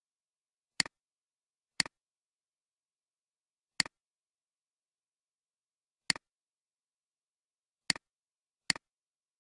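Computer mouse button clicking six times at uneven intervals, each click a quick press-and-release double tick.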